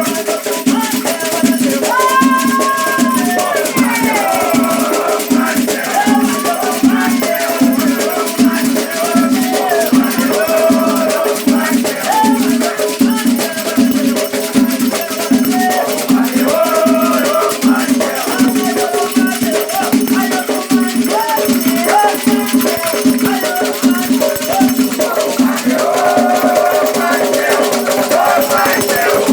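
Batuque ritual music: voices singing over a shaken rattle that keeps a steady, even rhythm.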